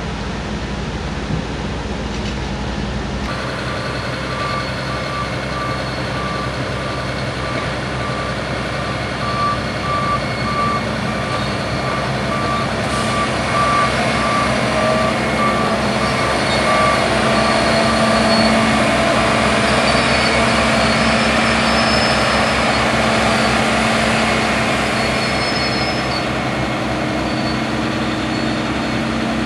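Diesel engine of a Caterpillar hydraulic excavator running steadily while it works, with a reversing alarm beeping about once a second until about two-thirds of the way through.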